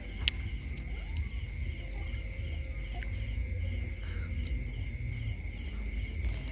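Crickets trilling steadily in a continuous night chorus, over a low rumble, with one sharp click shortly after the start.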